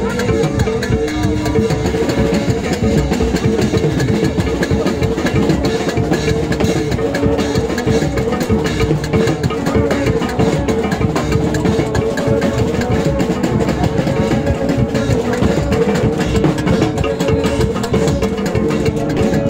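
Haitian rara band playing: vaksen horns blow a repeating pattern of short held notes over dense hand-drum and percussion rhythm.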